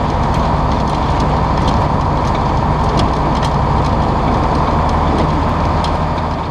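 EMD two-stroke diesel locomotive running steadily under way, a low engine drone over rumbling wheels on the rails, with scattered sharp clicks.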